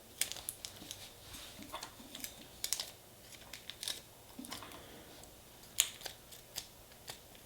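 Irregular light clicks and taps of small objects being picked up and set down on a tabletop, the sharpest about six seconds in.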